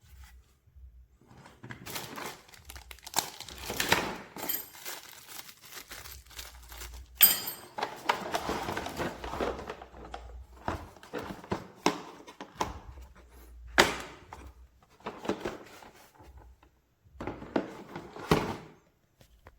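Packaging and hard parts being handled: irregular crinkling and rustling with scattered sharp clicks and knocks, the loudest knocks about 7, 14 and 18 seconds in.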